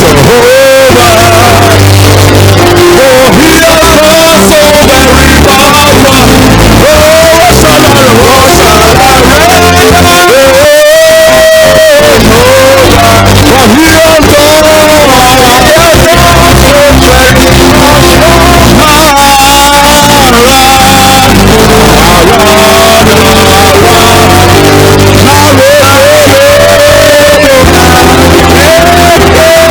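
Live church praise music, very loud: a male voice sings a worship melody over a band with sustained bass and keyboard notes.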